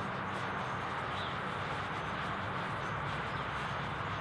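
Burning ammonium dichromate volcano: a steady soft hiss with faint crackles as the reaction smoulders in the crater of green chromium oxide.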